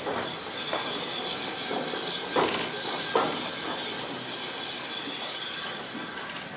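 Inside a moving railway carriage: steady running noise from the train on the track, with irregular knocks and rattles from the wheels and coach body, the two sharpest about two and a half and three seconds in.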